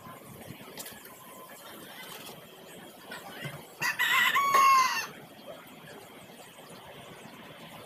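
A rooster crowing once, about four seconds in, a single call lasting about a second that rises and then drops away at the end.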